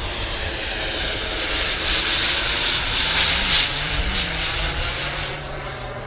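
Kingtech K45 turbojet of a Freewing A-10 Warthog RC jet model flying overhead: a steady jet rush and whine that swells to its loudest about three and a half seconds in, then eases off as the model passes.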